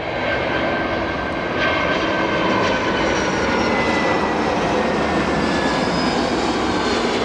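Jet engines of an easyJet Airbus A320-family airliner on final approach with gear down, a steady roar with high whining tones that slide slightly lower in pitch as it passes close overhead.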